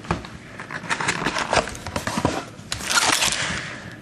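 Packaging of a box of trading card packs being handled and pulled open: irregular crackling and crinkling with sharp clicks, loudest about three seconds in.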